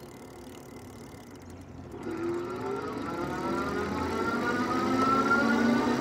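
Electric bike's rear hub motor spinning the freshly trued fat-tire wheel up to speed: a low hum, then from about two seconds in a whine that climbs steadily in pitch and grows louder.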